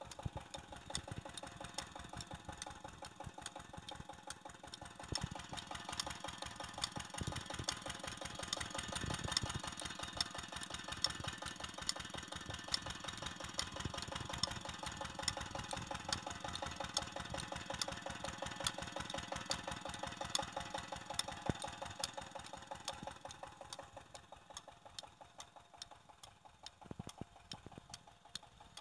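25 hp Petter diesel engine running steadily with a rapid, even knocking beat, driving a tube-well water pump through a flat belt. It grows louder after about five seconds and fades near the end.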